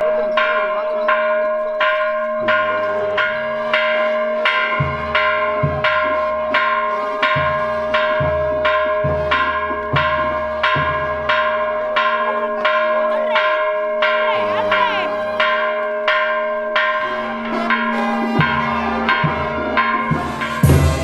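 Church bell rung in quick, even strokes, about three every two seconds, its tone ringing on between strokes. A loud knock comes near the end.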